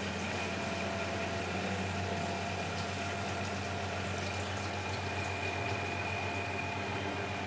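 Miele Hydromatic W734 washing machine running: a steady low motor hum with a faint, constant high whine over it.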